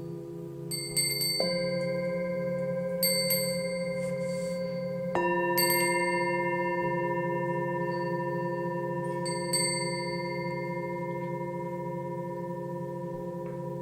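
Singing bowls ringing in a steady layered drone, with about six bright metallic strikes over it. Two of the strikes, about one and a half and five seconds in, add new lasting notes that hang on under the rest.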